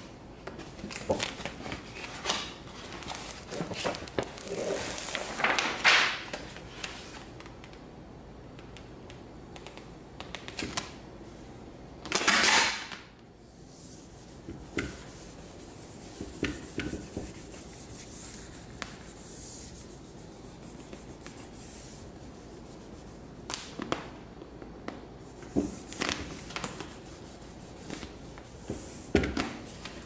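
Hands rubbing and smoothing a printed vinyl wrap sheet flat, with irregular rustles, crinkles and small taps as the sheet is pressed and lifted; one louder rustle lasting about a second comes a little before halfway.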